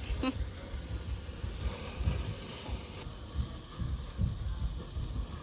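Barbecue grill hissing steadily, with an uneven low rumble underneath.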